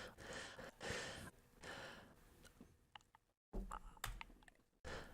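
Faint breaths and sighs into close microphones, with a few small clicks, broken twice by abrupt drops to dead silence where speech has been edited out.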